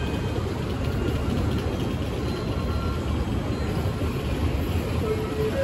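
Steady low rumble of a Shinkansen station platform, with a bullet train standing at the platform. About five seconds in, a few steady chime tones begin.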